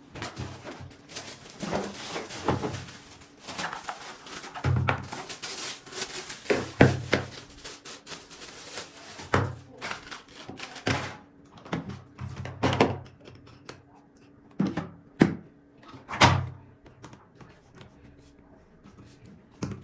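Unboxing a plastic vacuum cleaner: a string of irregular knocks and thuds from the parts and the box being handled, with rustling of packaging in the first half and fewer knocks later.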